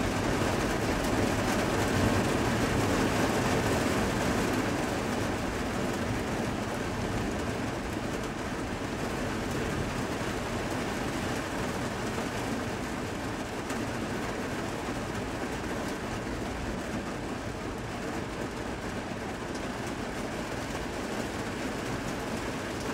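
Heavy thunderstorm rain falling steadily, with a low rumble of thunder dying away over the first few seconds.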